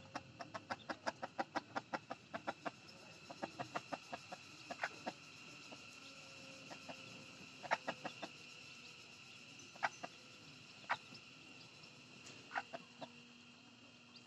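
Junglefowl hen with chicks clucking: a quick run of short soft clucks, about five a second, for the first two or three seconds, then single clucks every second or two.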